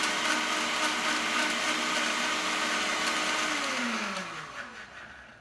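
Vitamix countertop blender running at high speed, churning a thick load of clam chowder and beer. About three and a half seconds in it is switched off, and its motor whine falls steadily in pitch and fades as the blade spins down.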